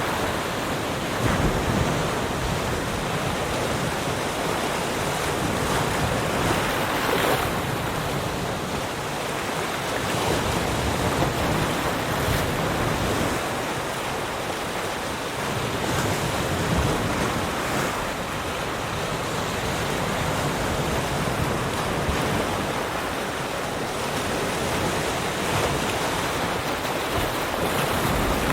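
Ocean waves breaking and washing on a shore, a steady rush of surf that swells and eases every few seconds.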